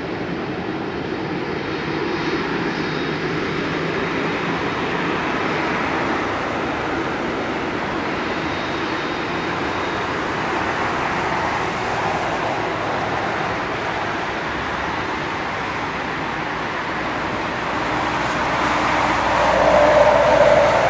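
Boeing 767-300 airliner's jet engines rumbling steadily, growing louder near the end.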